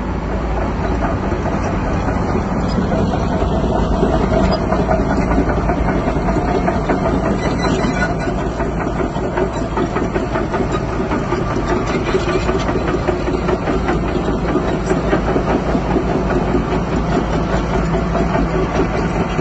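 Bulldozer's diesel engine running steadily and loud, with a dense low rumble.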